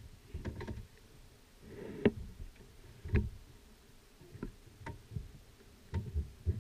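Scattered soft clicks, knocks and rustles of a hunter handling a muzzleloader on shooting sticks and shifting in his clothing inside a fabric ground blind, the sharpest knock about two seconds in.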